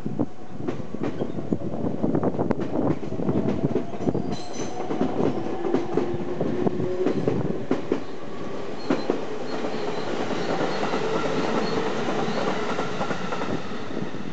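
A train passing over the level crossing: its wheels click rapidly over the rail joints for about nine seconds, with a tone rising slowly underneath, then the sound smooths into a steady rumble near the end.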